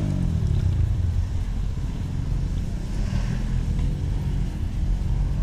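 An engine's hum drops in pitch at the start, then a steady low rumble carries on.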